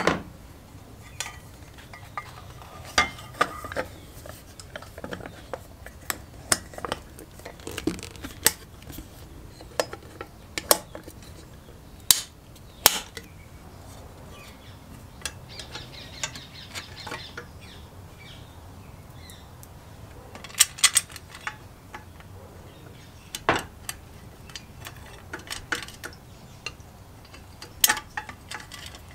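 Irregular metal clicks, clinks and knocks of engine parts being handled and fitted by hand, such as an air filter and a sheet-metal cylinder shroud going onto a small two-stroke engine.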